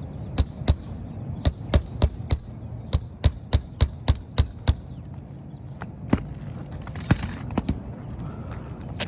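Sharp metal-on-metal strikes of a nail-removal tool working stuck roofing nails loose under a shingle: about a dozen quick blows, roughly three a second, then a few scattered ones later.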